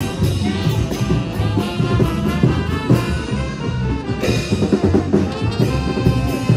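Brass band playing: trumpets and trombones carrying a melody over a steady percussive beat.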